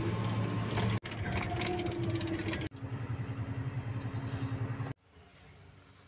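Bus engine running, heard from inside the passenger cabin: a steady drone with road noise, broken by two abrupt cuts. Near the end it cuts off suddenly to a much quieter room.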